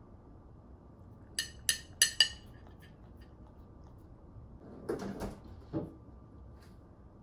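A metal spoon clinks four times in quick succession against a ceramic plate. A few seconds later come softer wet sounds of a puppy licking food off the spoon.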